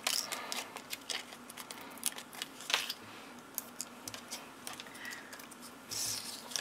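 Scattered small clicks, ticks and paper rustles from hands handling a sheet of Dimensionals foam adhesive dots on a craft mat, with a brief rustle about six seconds in.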